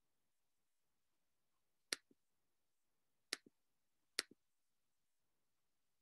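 Computer mouse clicking three times, each a sharp click with a fainter one just after, like a button pressed and released; otherwise near silence.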